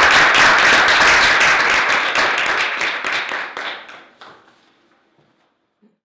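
Audience applauding, loud at first and dying away about four to five seconds in.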